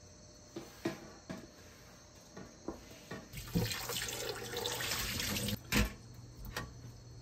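A kitchen tap running into the sink for about two seconds near the middle, with light clicks of kitchen handling before it and a sharp knock just after it stops.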